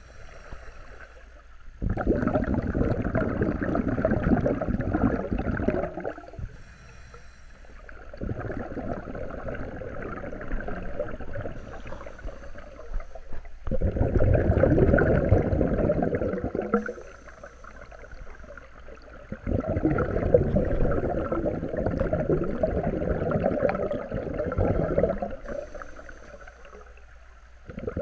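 Scuba regulator exhaust bubbles rumbling and gurgling underwater, heard through an underwater camera: a long surge of bubbles with each exhaled breath, every five or six seconds, with quieter gaps between them as the diver breathes in.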